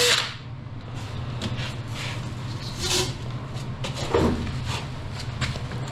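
A drill spinning a mixing paddle in a cup of two-part pour foam cuts off right at the start. Then come scattered light knocks and clicks of handling, with one louder thud about four seconds in, over a steady low hum.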